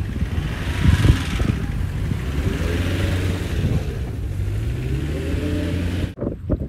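Suzuki Jimny engine revving up and down as the 4x4 spins doughnuts on snow. The sound cuts off abruptly near the end.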